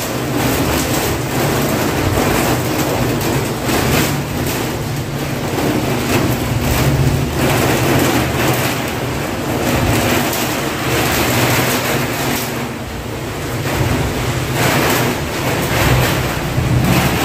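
Heavy rain pouring down: a dense, steady hiss that swells and eases in strength.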